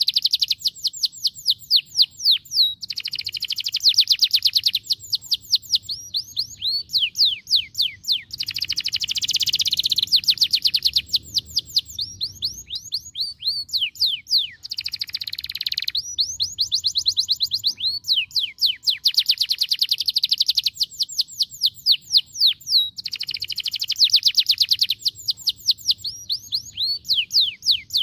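Domestic canary singing a long run of fast trills. Each phrase is a rapid string of downward-sweeping notes, repeated phrase after phrase with only brief gaps.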